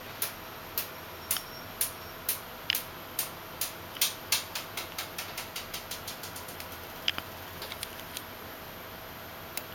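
A series of sharp, light clicks over a faint steady hum. The clicks come about two a second at first, speed up to several a second from about four seconds in, then thin out to a few scattered clicks.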